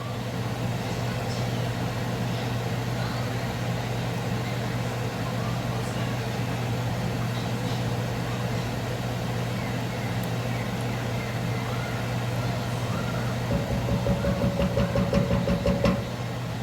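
Steady low hum of a kitchen appliance motor. Near the end come a couple of seconds of rhythmic stirring strokes in a pot, about four a second.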